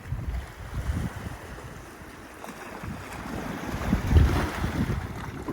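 Wind buffeting the microphone in gusts, over waves washing on the shore, with a louder surge of surf about four seconds in.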